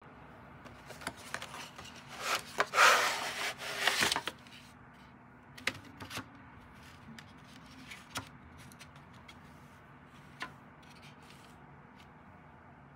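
Cardboard gouache paint box being opened: a loud rubbing scrape as the tray slides out, about two to four seconds in. A few light, separate clicks and taps follow as the paint tubes in the tray are handled.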